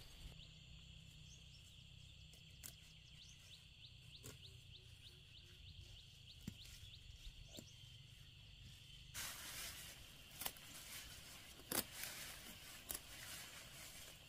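Faint rural ambience with a steady high insect drone. About nine seconds in it gets louder, with rustling of leafy plants and a few sharp snaps as perilla stems are picked by hand.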